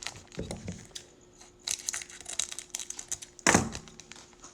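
Trading cards being handled and a foil card-pack wrapper crinkling, in scattered short rustles, with one louder rustle about three and a half seconds in.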